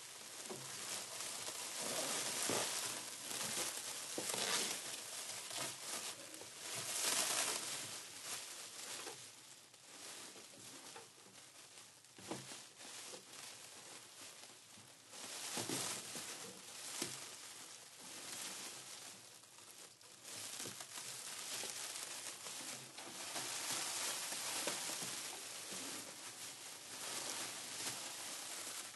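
Plastic sheeting crinkling and rustling as it is handled, in irregular swells that come and go.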